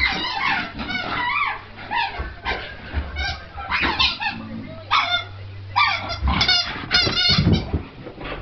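Squeaky rubber ball squeaking again and again as a Staffordshire bull terrier plays with it, the squeaks coming in quick runs of several at a time.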